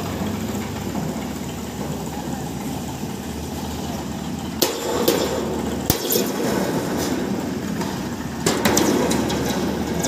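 A roll-forming machine runs with a steady low hum as a long profiled steel roofing sheet slides out along its guide. Sharp metallic clicks and rattles come from the sheet about halfway through and again near the end.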